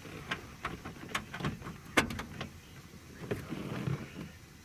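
Irregular light clicks and taps of hardware being handled against the plastic rear deck of a car as a replacement speaker is fastened down with its original bolt, with one sharper knock about two seconds in.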